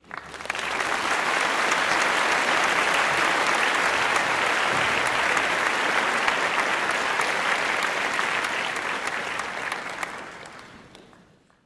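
Audience applauding, a dense steady clapping that fades out over the last second or two.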